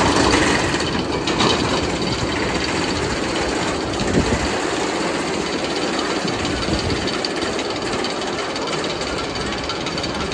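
Steel-and-wood hybrid roller coaster train rolling and clattering on its track, a steady loud rumble with rattling.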